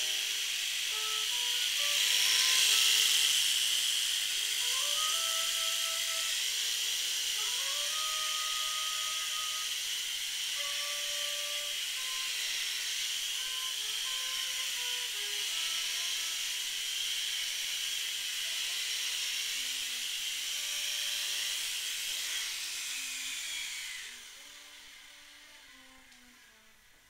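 Bravo-Koax coaxial RC mini helicopter's electric motors and rotors whirring with a steady high whine, getting louder about two seconds in. Near the end the whine falls in pitch and dies away as the motors spin down. Faint music plays underneath.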